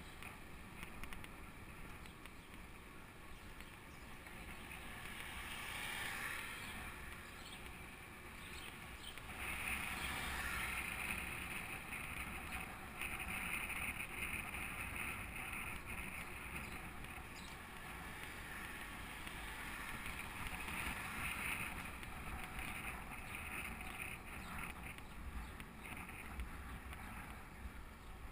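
Bicycle riding along an asphalt road: steady tyre and road rumble with wind on the microphone, swelling and easing every few seconds.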